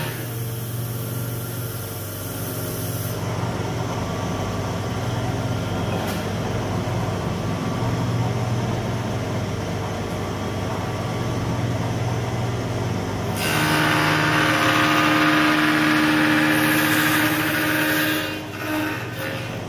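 Spindle moulder (wood shaper) running with a steady low hum. For several seconds past the middle it grows louder and harsher as the cutter cuts into a wooden workpiece.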